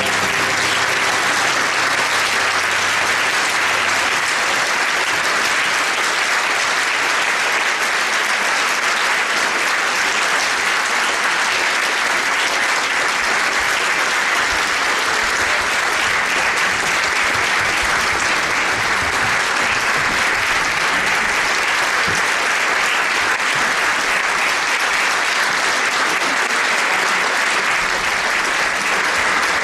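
Theatre audience applauding: steady, dense clapping that holds at the same level without a break.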